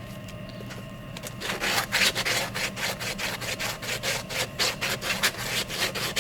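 Sandpaper rubbed back and forth by hand along the sawn edge of an acrylic piece, smoothing off rough edges. It starts about a second in as a rapid, even run of short scratchy strokes.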